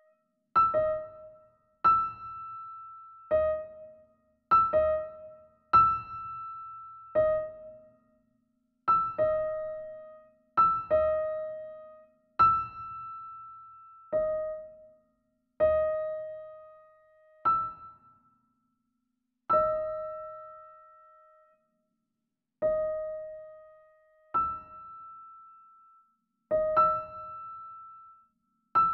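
Piano sounding a minor ninth again and again: two notes an octave and a semitone apart, struck together or one right after the other. Each pair rings and dies away before the next comes, one to three seconds later.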